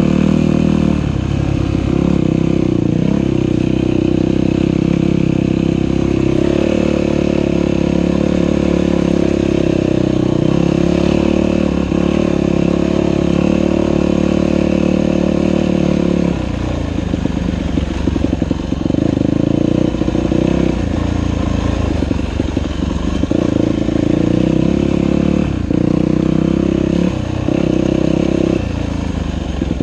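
Dirt bike engine running under way, steady for about the first half, then the throttle is rolled off and back on again and again, so the engine note keeps dropping and picking up.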